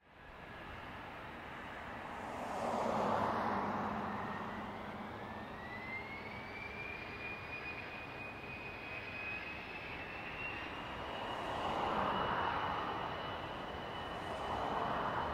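Airplane engine running, with a thin whine that rises in pitch a few seconds in and then holds steady, over a wash of engine noise that swells and fades several times.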